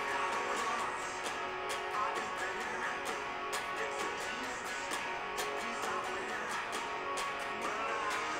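Single-cutaway electric guitar strummed with a pick, playing a steady rhythm of chords.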